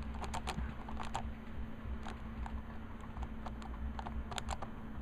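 Sticky black electrical tape being pulled off the fingers and balled up: scattered light crackles and clicks, bunched in the first second and again near the end. A faint steady low hum runs underneath.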